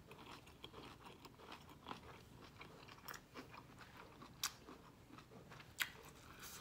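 Faint chewing with the mouth closed, soft crunches of a mouthful of shrimp and vegetable stir fry on lettuce, with two sharper clicks a little after four seconds and near six seconds in.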